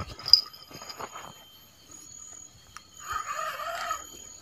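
Small bite-alarm bell on a fishing rod tinkling briefly near the start. About three seconds in comes a short wavering animal call.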